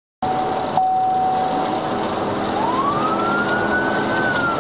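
Police car siren in a slow wail: one steady tone that glides up about two and a half seconds in and starts to fall slowly near the end, over engine and road noise, heard from inside the cruiser.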